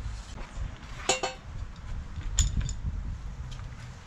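Metal parts clinking together a few times during an engine teardown, the loudest clink ringing briefly about a second in, over a steady low rumble.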